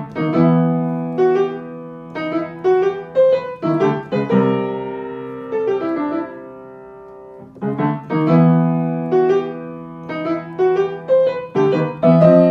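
Solo piano music: a short melody over chords, with one held chord fading away midway before the phrase starts again.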